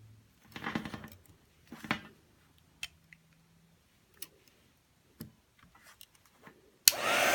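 Light handling rustles and a few sharp ticks, then near the end a heat gun clicks on and starts blowing with a loud, steady hiss, heating the phone's glued screen glass to soften the adhesive.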